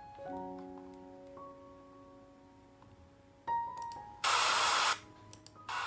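Sound-effect samples played back from a computer: a held chord of steady electronic tones that slowly fades, then a sudden loud hiss lasting under a second, and another steady hiss starting near the end.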